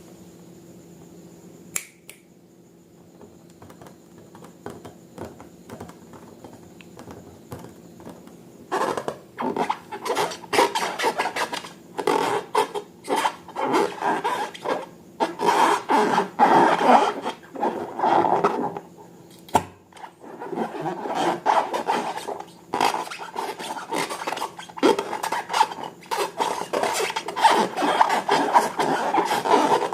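Slime being worked and squished by hand in a container: a dense, irregular run of short crackling and scraping strokes that starts about a third of the way in. Before that there is only a faint steady hum and a single click.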